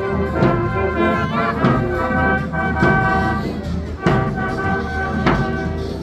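Brass band playing a tune in held notes, with a drum beat about once every second and a bit.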